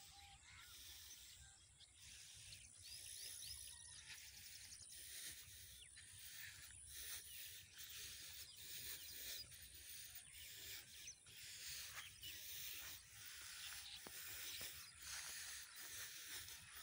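Faint footsteps scuffing on a sandy dirt track at a steady walking pace, over a quiet rural outdoor hiss.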